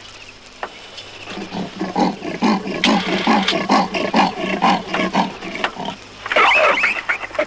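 Calls of a large African wild animal: a rapid run of rhythmic grunting calls, about four a second, then a louder, higher, harsher call about six seconds in.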